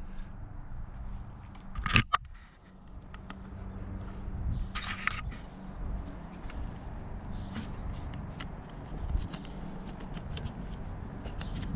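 Motorcycle body parts being handled and fitted back on by hand: a sharp knock about two seconds in, a short scraping rustle around five seconds, and scattered small clicks, over a steady low hum.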